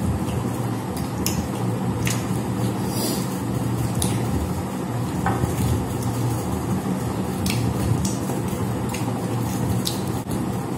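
Eating by hand from metal plates: fingers mixing and picking at rice and chicken, with scattered small clicks and wet mouth sounds, over a steady low hum.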